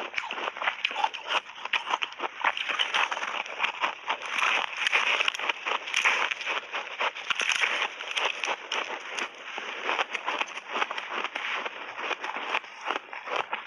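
Close-miked crunching of ice chunks layered with milk powder and mixed-berry powder, bitten and chewed: a rapid, continuous run of crisp cracks and crackles.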